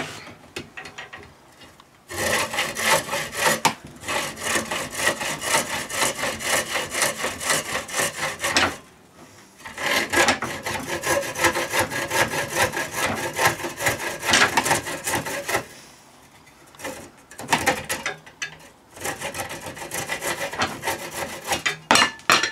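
Hacksaw cutting through a fiberglass rod, the core of a LARP sword, in fast back-and-forth strokes. The sawing comes in several runs broken by short pauses: starting about two seconds in, stopping briefly around nine and sixteen seconds, and resuming to the end.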